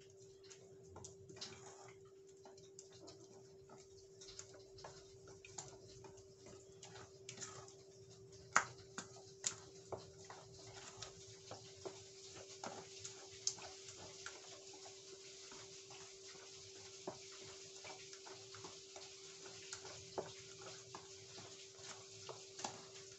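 A spatula stirring thick glutinous rice flour batter in a stainless steel bowl: irregular soft clicks and scrapes against the bowl, a few sharper knocks about nine seconds in, over a steady faint hum.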